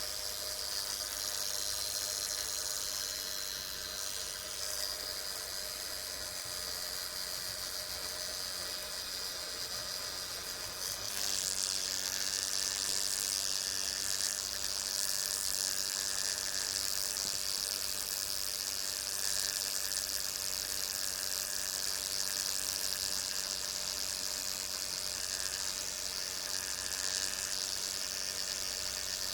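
Brown marmorated stink bug buzzing its wings in a steady drone, which gets louder about eleven seconds in.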